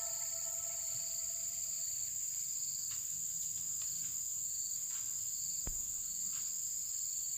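Insects chirring steadily in a constant high-pitched chorus, as the last notes of background music fade out in the first second or two.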